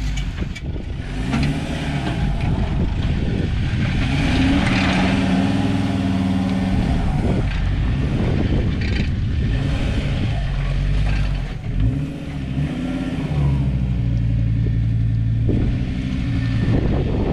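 An engine running steadily, its pitch rising and falling a few times as the throttle changes.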